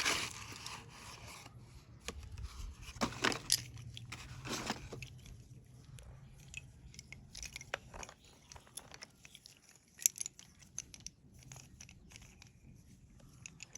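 Slate pencils being bitten and chewed: loud crunching at first, then a run of small dry crackles with one sharp snap about ten seconds in.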